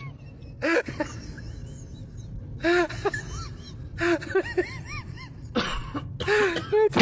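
A person's voice making short wordless sounds in four bursts, breathy and with brief rising-and-falling pitch.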